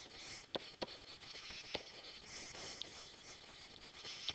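Faint stylus handwriting on a digital writing surface: a handful of light, sharp pen taps scattered through, with soft scratching over a low hiss.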